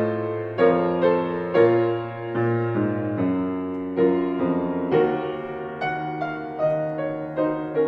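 Slow, gentle solo piano music: single notes and chords struck about once or twice a second, each left to ring and fade.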